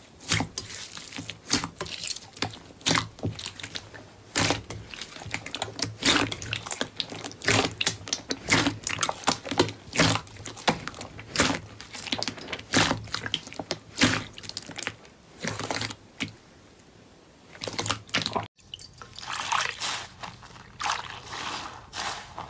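Slime being played with: a dense, irregular run of wet clicks, pops and squelches, breaking off briefly about eighteen seconds in before more of the same.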